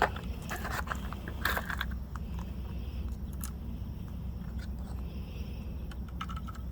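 Small metallic clicks and clinks of .22 cartridges being handled and pushed into a rifle's tubular magazine, with a few sharper clicks near the start and about a second and a half in, over a low steady rumble.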